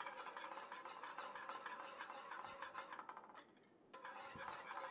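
Wire balloon whisk stirring briskly through thick béchamel sauce in a metal pan, a faint quick scraping and sloshing as egg yolks are worked in. The whisking pauses briefly a little past three seconds in, then resumes.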